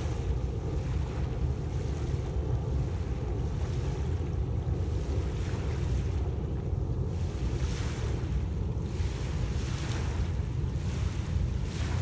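Small lake waves washing onto a pebble shore in irregular swells every second or two, over a steady low rumble of wind on the microphone.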